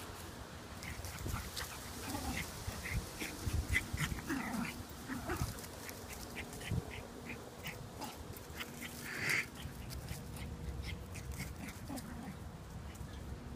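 Two small dogs playing chase, a Cardigan Welsh Corgi and a Chion, with a string of short high yips and a louder cry about nine seconds in.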